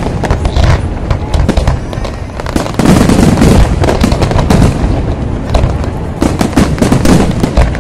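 Dense fireworks barrage: many aerial shells bursting close together in quick, overlapping booms and crackles.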